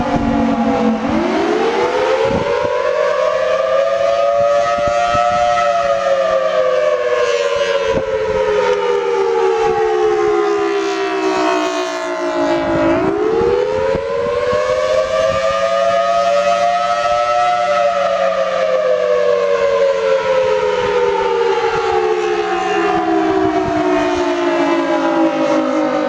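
Federal Signal Thunderbolt T1003 outdoor warning siren sounding the attack signal. Its pitch winds up over about four seconds, then winds slowly down over about seven seconds, and the cycle repeats twice.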